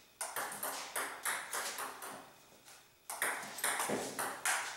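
Table tennis rally: the celluloid ball clicking back and forth off rubber paddles and the table top in quick sharp pocks. There is a brief lull of about a second midway, then another fast run of hits.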